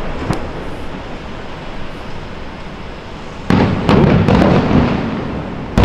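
Aerial firework shells bursting: a faint crack just after the start, then about three and a half seconds in a sudden run of loud booms and sharp cracks over a low rumble, and another loud burst right at the end.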